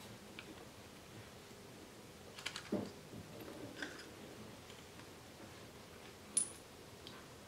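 Faint, sparse clicks and clinks of small engine parts being handled at the cylinders of a two-stroke motorcycle engine during top-end disassembly. There is a little cluster with a soft knock about three seconds in, and one sharper click near the end.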